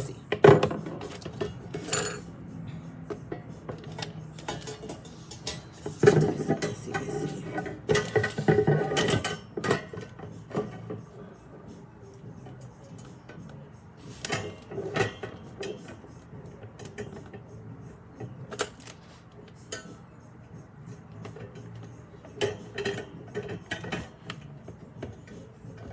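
Metal parts of a wire can rack clinking and knocking against each other and the work surface as they are handled and screwed together, in scattered bursts with the busiest clatter about a quarter to a third of the way through.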